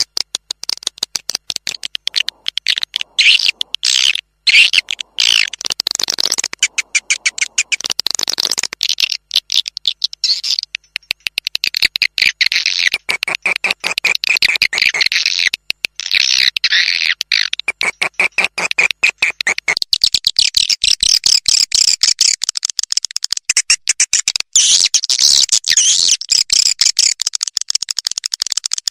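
Swiftlet lure call played back for swiftlet farming, the fast 'panter' sound: rapid, high-pitched chittering twitters made of dense trains of quick clicks, with brief pauses between runs.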